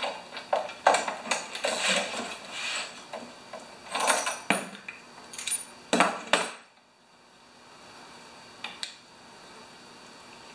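Metal hand tools clinking and clattering as they are handled against a lawn mower engine. After about six and a half seconds it stops, leaving quiet shop room tone with two light clicks near the end.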